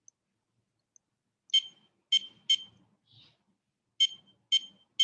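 Smart door lock keypad beeping as a six-digit passcode is keyed in: six short, identical high beeps at uneven intervals, one per key press.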